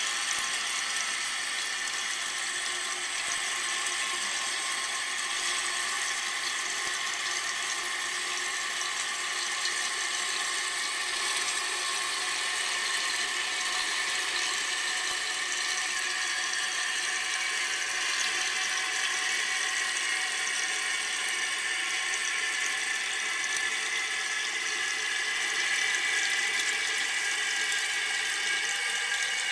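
Water running into a toilet tank through the fill valve: a steady hiss with a thin high whistle that slowly shifts in pitch.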